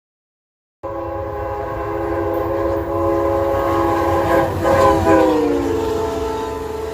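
Amtrak Southwest Chief passenger train's multi-chime air horn blowing a sustained chord over the rumble of the train. The horn starts abruptly just under a second in, and its pitch falls about five seconds in as the locomotive passes.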